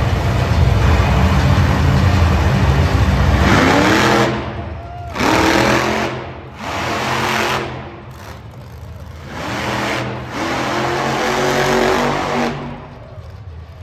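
Monster truck engine running hard, then revving in several separate bursts, its pitch climbing about four seconds in. It drops back to a lower level near the end.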